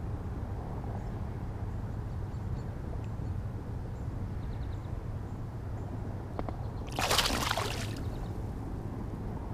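Hooked largemouth bass thrashing at the water's surface beside the kayak: one splash about seven seconds in, lasting about a second, over a steady low rumble.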